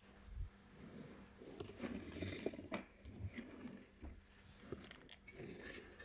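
Handling noise: soft knocks, taps and rustling as hands move a laptop motherboard and pick up a handheld magnifier on a silicone repair mat, over a faint steady hum.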